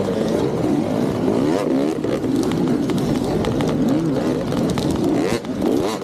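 Several dirt bike engines revving at once, their pitches rising and falling over one another as the bikes ride close together.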